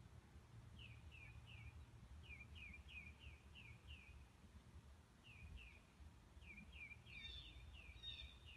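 Faint bird chirps: short falling notes in quick runs of two to six, with a different, higher bird call joining near the end, over a faint low rumble.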